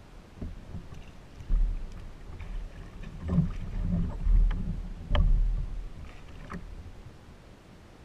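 Handling noise on a fishing kayak as a rod is cast: low thumps and knocks against the hull and a few sharp clicks. The loudest knock comes about five seconds in.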